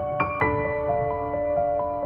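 Background music: a slow, soft piano-like melody with held chords in a calm new-age style.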